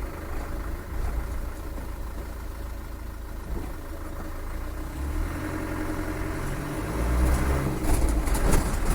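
Land Rover 300Tdi four-cylinder turbo-diesel idling, then pulling away with the engine note getting louder from about five seconds in.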